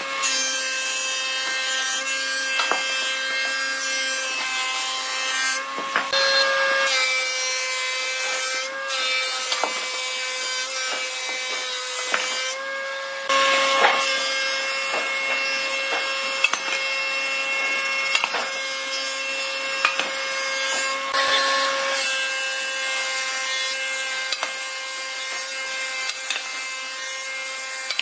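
Industrial thickness planer running with a steady whine while its cutterhead planes boards fed through it, a rough, continuous shaving noise over the motor tone, broken briefly a few times.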